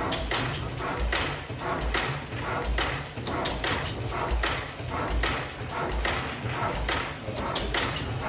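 1908 National Gas Engine Type S single-cylinder gas engine running slowly with no load, its valve gear and igniter clicking over a low thud about every 0.8 s in a steady rhythm. It runs light, with the governor letting it fire only every few turns, about three misses to a hit.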